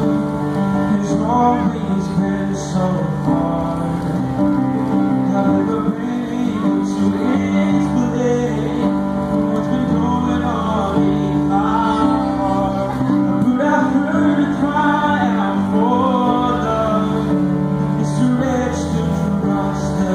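A man singing while playing a grand piano, with held piano chords that change every second or two under his sung melody. Voice and piano are amplified through stage speakers.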